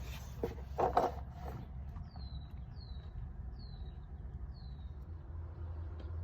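Four short high chirps, each falling in pitch, about a second apart: a bird calling, over a steady low rumble. A brief knock or rustle comes about a second in.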